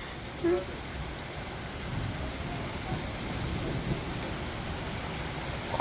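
Heavy thunderstorm rain pouring steadily, with a low rumble of thunder through the middle. A brief short sound about half a second in.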